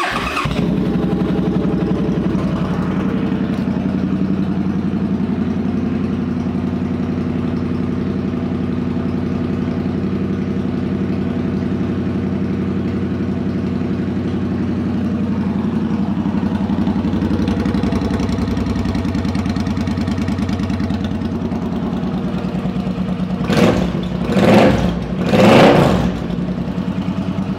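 A 2011 Suzuki Boulevard C50T's V-twin engine, fitted with twin Cobra pipes, starts up and then idles steadily. Near the end it is blipped three times, each rev dropping back to idle.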